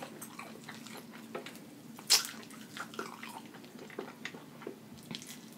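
Eating fried chicken wings: chewing with soft wet mouth clicks, and one sharper click about two seconds in.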